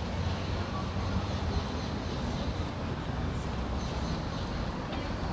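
City street ambience: a steady low rumble of passing traffic with a general background din.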